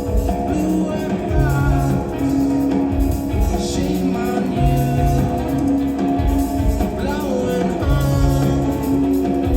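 Rock band playing live: drums and a repeating bass figure with guitar, and a voice singing over it.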